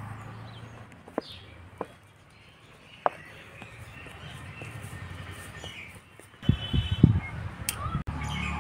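Birds chirping faintly, with a few sharp clicks in the first three seconds. About six and a half seconds in, a louder, uneven low rumbling with thumps sets in.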